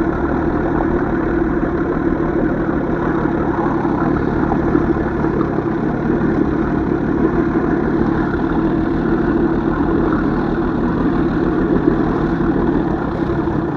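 Evinrude 150 hp outboard motor on a bass boat running steadily at an even speed, with a steady hum.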